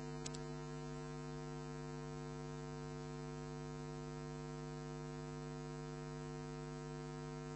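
Steady electrical hum with a buzzy stack of overtones, unchanging in pitch and level: mains hum on the broadcast audio feed once the commentary has stopped.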